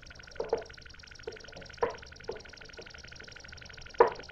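Footsteps on a hard floor: a handful of light knocks at uneven spacing, then one louder knock about four seconds in, over a steady high-pitched hiss from the old soundtrack.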